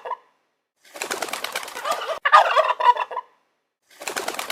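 Turkey gobbling: three rapid, rattling gobbles in a row, with short pauses between them.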